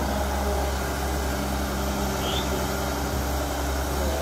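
Diesel engine of a CAT 320 hydraulic excavator running steadily while its arm and bucket work in mud, a low even hum.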